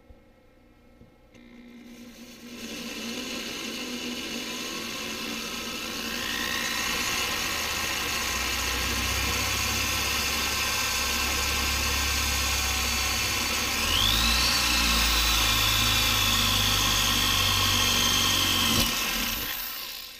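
Power drill with a 9/32-inch bit boring a hole through the top of a plastic clamp. It starts about two seconds in and runs steadily, its whine rising twice, and is loudest in the last few seconds before it stops.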